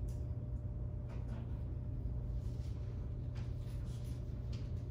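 Room tone: a steady low hum with a few faint ticks or rustles scattered through it.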